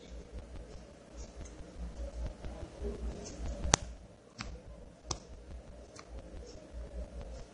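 A few short, sharp clicks of fingertips tapping the phone, picked up by its own microphone, the loudest about halfway through, over a faint low hum.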